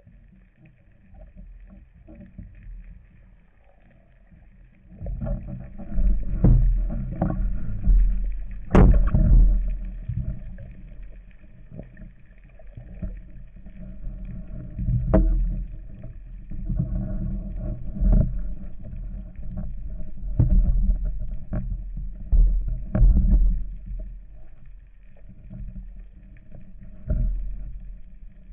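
Muffled water sloshing and splashing, with a few sharp knocks breaking in irregularly, the loudest about nine seconds in; quieter for the first few seconds.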